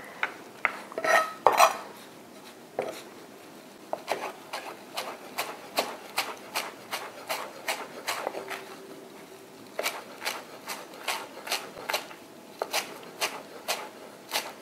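Chef's knife chopping fresh parsley on a cutting board: a steady run of quick knocks, about three a second, with a short pause around the middle.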